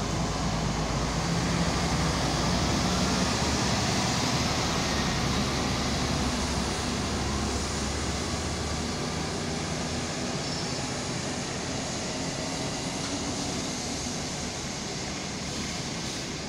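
Volvo Super Olympian double-decker bus's diesel engine pulling away and fading into the distance, over steady street traffic noise. Loudest a few seconds in, then slowly getting quieter.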